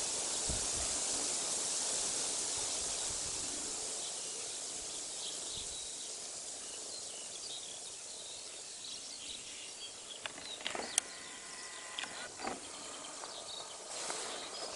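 Outdoor ambience: a steady hiss that eases over the first few seconds, with faint small-bird chirps. About ten seconds in comes a short rattle of rapid clicks with one sharp click at its height, white stork bill-clattering.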